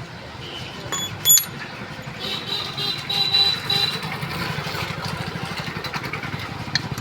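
Metal spanner work on an e-rickshaw differential: a nut is loosened with a 9-10 spanner, with two sharp metal clinks about a second in, then ringing metal tones and a fast low rattle from the tool on the housing.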